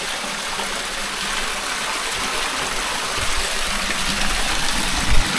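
Spring water pouring steadily from the five spouts of a mountain spring, an even rushing splash. A brief low thump comes near the end.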